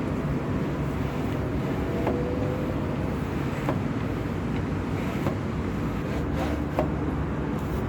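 Flat mop being pushed across a floor, with light knocks about every second and a half and a short squeak, over a steady background rumble.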